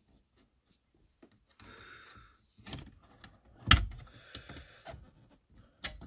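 Plastic scraping and clicking as a car radio unit is pried loose from its dashboard slot with removal tools. One sharp knock a little past halfway is the loudest sound, with more scraping right after it and a last click near the end.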